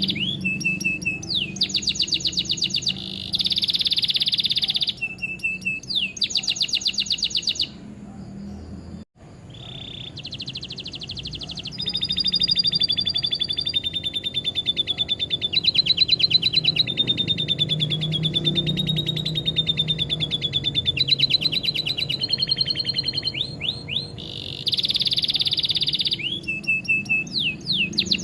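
Domestic canary song in fast trills and rolls, with long, rapid lovebird-style chattering trills mixed in. There is a brief dropout about nine seconds in.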